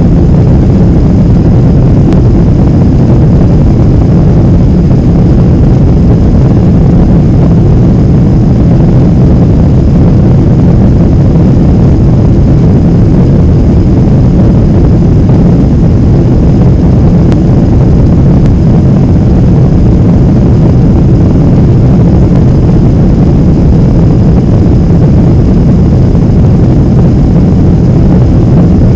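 Steady cabin noise of a Boeing 767-300ER in its climb: a low rumble of jet engines and rushing air heard from inside the cabin, with a faint high tone over it.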